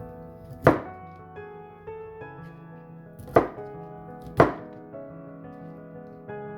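Knife chopping cauliflower on a cutting board: three sharp, separate strikes spaced a second or more apart, over background music.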